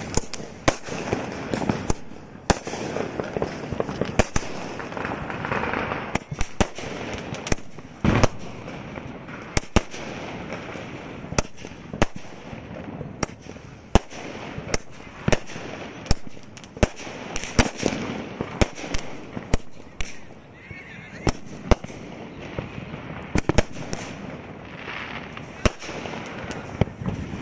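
A 100-shot aerial firework cake firing in a long run of sharp bangs, irregular at about one or two a second, as its shells burst overhead, with a crackling haze between the bangs.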